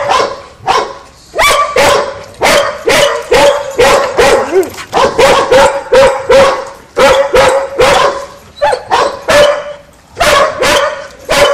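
Border collie barking over and over, about two or three sharp barks a second, with short pauses now and then.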